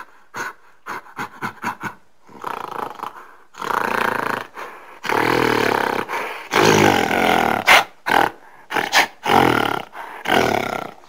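Gorilla calling: a quick run of short panting calls, then a series of loud roars about a second long each, giving way to shorter barking calls near the end.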